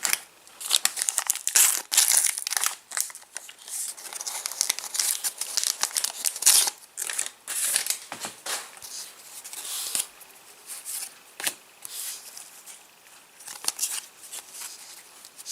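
Trading-card foil packet being torn open and its wrapper crinkled and crumpled by hand, an irregular crackling rustle with sharp snaps throughout.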